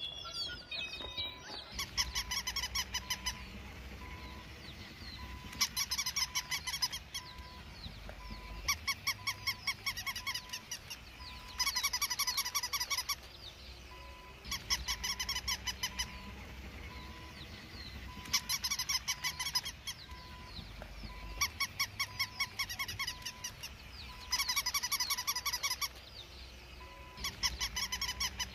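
A looped animal call made of rapid pulses, sounding in bursts of about a second and a half roughly every three seconds, over a faint, regularly repeating beep.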